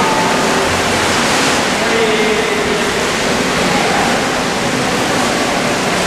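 Steady rushing noise of an indoor swimming pool hall, with faint voices underneath.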